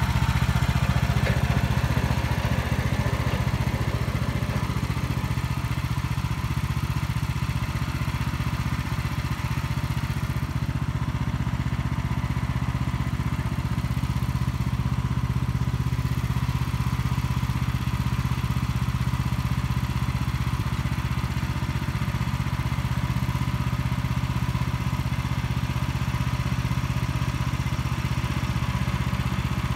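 An engine running steadily with an even low drone, holding the same speed throughout.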